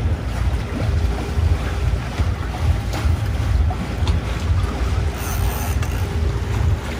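Wind buffeting the microphone aboard a boat at sea: a heavy, fluttering low rumble over an even rush, with a faint steady hum underneath.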